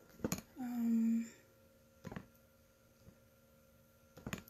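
A woman's short closed-mouth hum ("mm") about a second in, with a few light clicks, about three in all, over quiet room tone.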